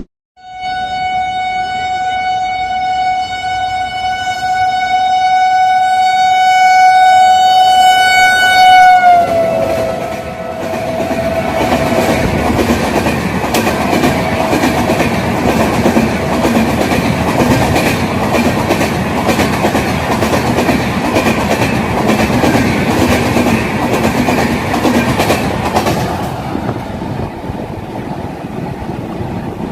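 Indian Railways electric locomotive's horn sounding one long continuous blast that grows louder, then dips slightly in pitch about nine seconds in as the locomotive passes. The rumble and wheel clatter of the passing train follow and carry on for over a dozen seconds before dropping off near the end.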